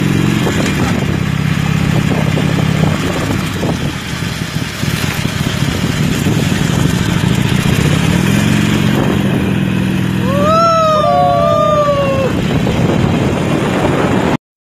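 Motorcycle engine running while riding, with wind noise over the microphone; the engine note rises about eight seconds in. A short wavering high tone, rising then falling, sounds about ten seconds in, and the sound cuts out just before the end.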